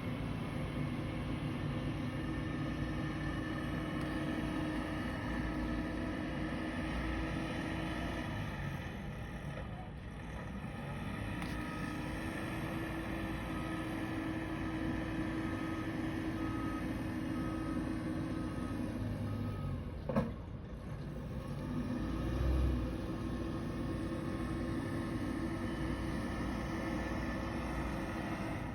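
Heavy truck engine running steadily, easing off briefly and picking up again, with a faint reversing beeper sounding about once a second for several seconds. A single sharp click comes about two-thirds of the way through.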